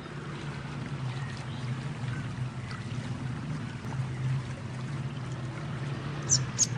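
Two short, high sunbird chirps near the end over a steady low hum and a water-like rushing background, with a few fainter chirps earlier.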